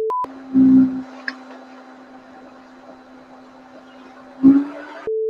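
Short electronic two-tone beep, a lower tone then a higher one, at the start and again at the end. Between them a steady low-pitched hum, loud for about the first second and then faint, with a brief loud swell just before the final beep.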